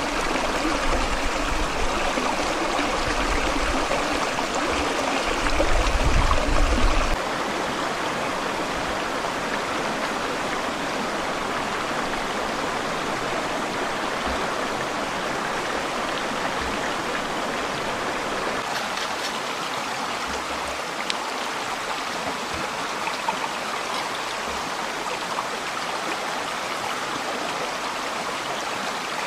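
Steady rush of flowing stream water, with a louder low rumble in the first seven seconds that cuts off abruptly.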